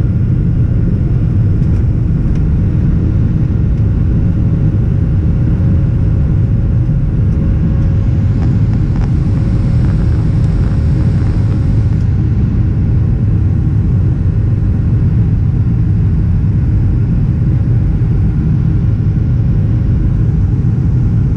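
Jet airliner's engines at takeoff power heard inside the cabin from a window seat over the wing, as the plane leaves the runway and climbs out. It is a loud, steady rumble with a steady hum, and a little more hiss for a few seconds around the middle.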